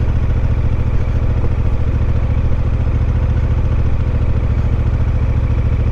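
Motorcycle engine running steadily, with an even low pulsing from its firing and no change in speed.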